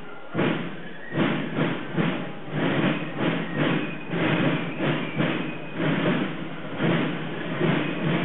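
Marching drums of a street procession beating a steady march rhythm, a little under two beats a second, with a few short high piping notes over it.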